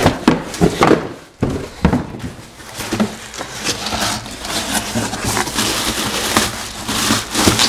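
Plastic wrap crinkling and rustling as it is pulled off a new alloy wheel in its cardboard box, with irregular crackles and a few cardboard knocks and scrapes.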